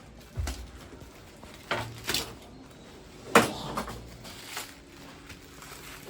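Handling and unpacking a camera lens box: a few separate knocks and clicks of packaging being moved and opened, a low thump about half a second in and the sharpest knock a little past the middle.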